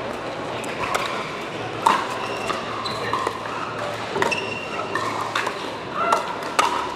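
Pickleball rally: the plastic ball is struck by paddles with sharp pops about once a second, ringing briefly in a large hall.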